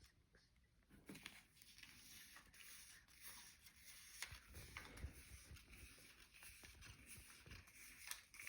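Near silence, with faint rustling and light clicks of Monopoly paper money and cards being handled and counted.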